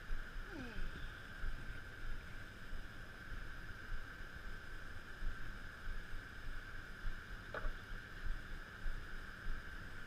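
Outdoor river ambience: uneven low wind rumble on the microphone under a steady high-pitched hum, with a short falling squeal about half a second in.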